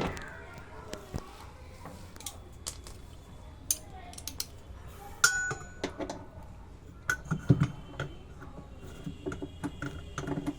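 Metal parts and tools clinking and knocking together in handling, a series of scattered sharp clicks, some with a brief metallic ring.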